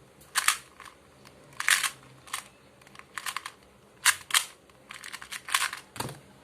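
2x2 Rubik's cube being turned rapidly in a speedsolve: quick irregular clusters of plastic clicks and scraping layer turns, with a lower knock near the end.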